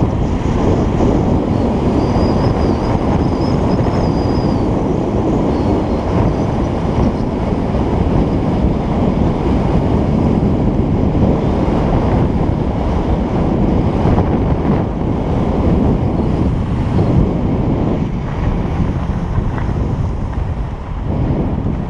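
Rushing wind buffeting the microphone of a skier's action camera during a fast run down a groomed piste, mixed with the skis' hiss and scrape on the snow; it eases slightly near the end.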